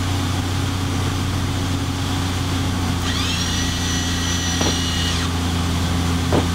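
Cessna Bird Dog's six-cylinder Continental engine running steadily in flight, a deep even drone. About three seconds in, a high whistling tone rises, holds for about two seconds and cuts off, with a couple of faint clicks after it.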